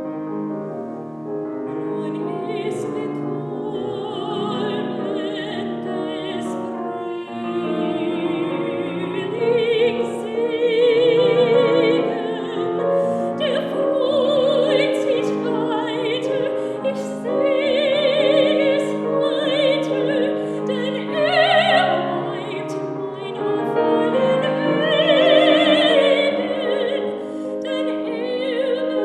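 Soprano singing a German art song with wide vibrato, accompanied by piano; the piano plays alone briefly before the voice comes in about two seconds in.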